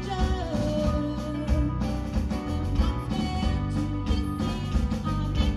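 Live band playing amplified pop-rock with electric guitars, keyboard and drums, with a woman singing a children's movie theme song over a steady beat.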